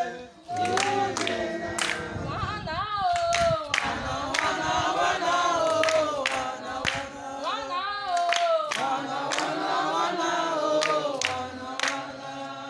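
A group of voices singing together unaccompanied, with sharp hand claps keeping a steady beat about every half second.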